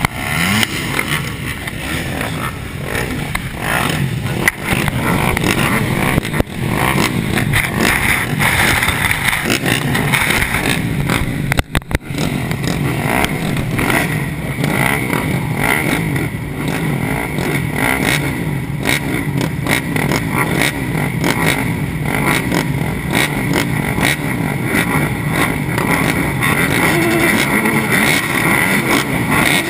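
A row of 250cc four-stroke motocross bikes running together at the start gate, engines idling and being blipped with short throttle revs. The sound grows a little louder near the end.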